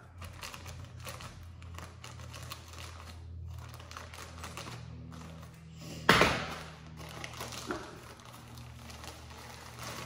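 Thin plastic bag crinkling and rustling as it is handled and opened, with a run of small crackles and one loud, sharp crackle about six seconds in.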